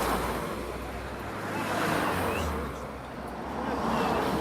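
Rushing road and wind noise from vehicles, swelling and fading three times over a steady low hum, with faint voices underneath.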